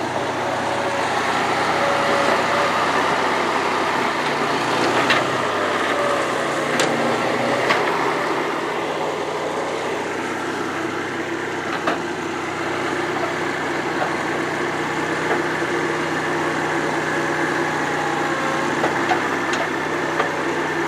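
New Holland L425 skid steer's Wisconsin four-cylinder gas engine running steadily, with a few sharp knocks or clanks over it, mostly in the first half.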